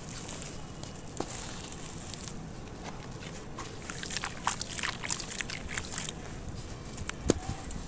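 Hands crumbling and squeezing dry clay chunks into muddy water: a steady gritty crunching and crackling with many small clicks, and one sharp crack near the end.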